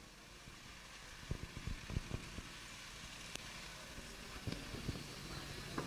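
Quiet outdoor background noise with a few soft low thumps, a cluster of them a little over a second in and a few more near the end.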